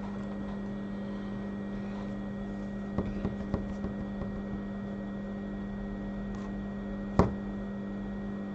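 Steady electrical hum from the repair bench's equipment, with a few light clicks about three seconds in and a single sharp knock a little after seven seconds, small tools being handled on the bench as heat sinks are taken off a circuit board.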